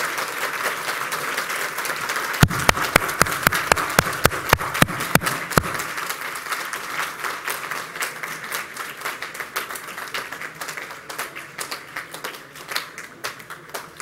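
Large crowd applauding, gradually dying away over about ten seconds. From about two and a half seconds in to nearly six seconds, a run of about a dozen loud, sharp knocks, roughly three a second, sounds over the applause.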